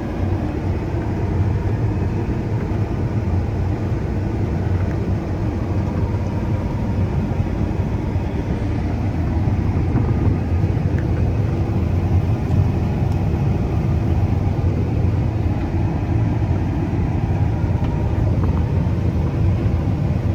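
Combine harvester running steadily while cutting wheat, heard from inside its closed, air-conditioned cab: a continuous deep hum with no breaks.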